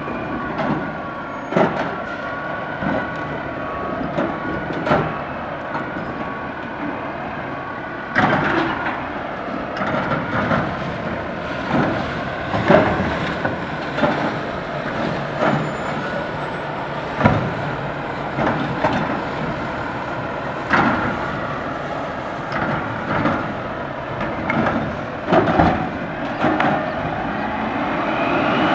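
Autocar ACX garbage truck with a DaDee Scorpion automated side-loader, its diesel engine running steadily under a held whine while the arm works, with repeated knocks and bangs as carts are grabbed, shaken out and set down. Near the end the engine note rises as the truck pulls forward.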